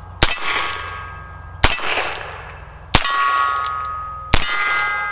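Four shots from a Heritage Rough Rider single-action .22 LR revolver, about one every second and a half. Each shot is followed by the ringing of a steel silhouette target plate that has been hit.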